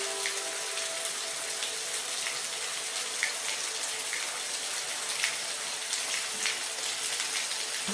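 Steady rain: a dense, even hiss with scattered individual drops ticking through it.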